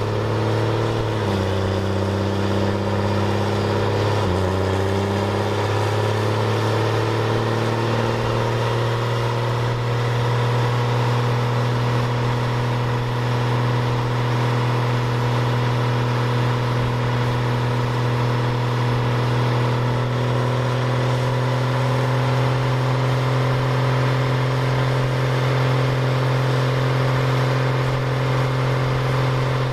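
Cummins diesel truck running on a chassis dyno, its engine note stepping up twice in the first few seconds and then holding a steady, high drone.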